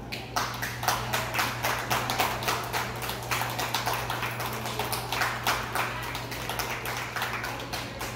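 A small crowd applauding, a quick irregular patter of claps that starts just after the beginning and goes on to near the end, over a steady low hum.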